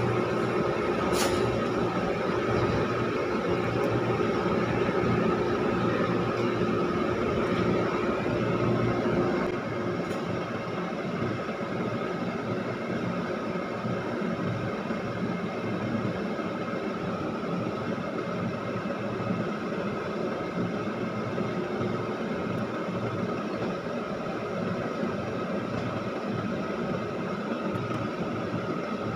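Cargo crane machinery running in a steady drone as it hoists a shipping container. About a third of the way through, a deeper hum drops out and it goes a little quieter.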